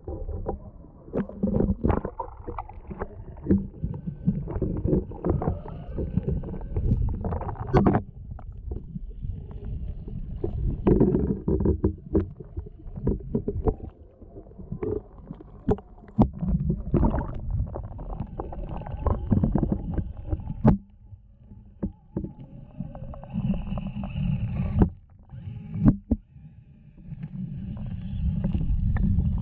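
Shallow stream water splashing and gurgling around a camera at and below the surface, muffled and rumbling, with frequent small knocks as an RC crawler wades through.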